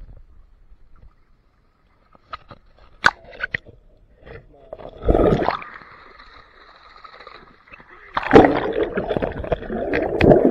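Water splashing and sloshing as skipjack tuna thrash in a fish-trap net being hauled in: a short hard burst about five seconds in, then a longer, heavier spell of splashing from about eight seconds in. A few light knocks come before them.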